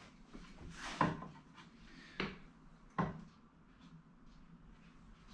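Light wooden knocks and clicks from the chair's pine parts and bar clamps being handled, three short ones about a second apart and a louder knock at the very end.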